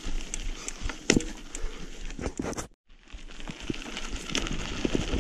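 Irregular clicks, knocks and crunches of a mountain bike working over a rough, stony track. The sound cuts out abruptly for a moment about three seconds in, then picks up again.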